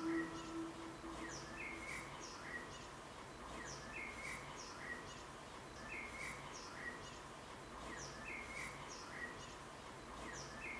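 Faint songbird chirps in a short phrase repeated at an even pace over a soft background hiss. A held musical note fades out in the first second.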